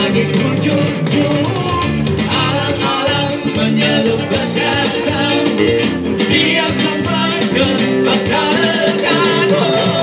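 Live amplified street-busker performance of a Malay pop song: voices singing into microphones over guitar-led band accompaniment through a PA speaker, playing continuously.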